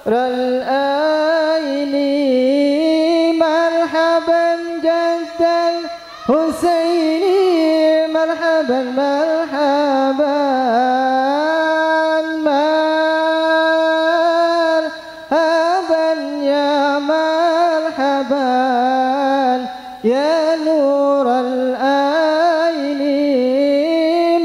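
A man singing an Arabic devotional salawat solo into a microphone, in long held notes with ornamented bends in pitch between breaths.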